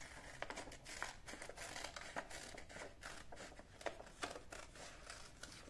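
Scissors cutting paper: an irregular run of small snips with faint paper rustling.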